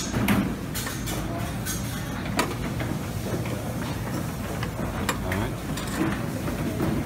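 Serving tongs clicking and scraping against stainless steel buffet pans and a plate while picking up pieces of duck. About four sharp clicks come in the first two and a half seconds, then fainter ones, over a steady background din.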